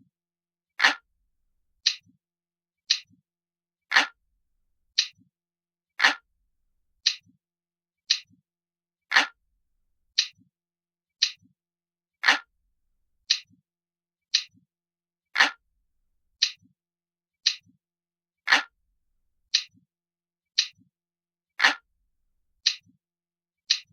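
Ticking of a traditional analog clock, a recorded clock sound effect: crisp, even ticks about once a second with silence between them, some ticks fuller and deeper than the rest.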